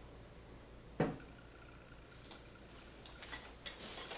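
A wall-mounted TV on a single-arm swivel bracket being pushed back toward the wall: one sharp knock about a second in, then a few faint ticks, as the arm folds in until its knuckle sits right up against the wall.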